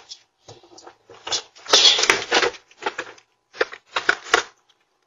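Baby stroller being unfolded and handled: irregular plastic-and-metal clatters and rattles in short bursts, the loudest a bit under two seconds in.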